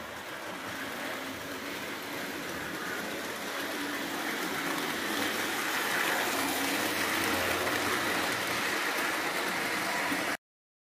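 Jouef BB 9201 model electric locomotive running on a layout's track: a steady rolling rush of wheels on rails and motor that grows louder as the train comes closer, then cuts off suddenly near the end.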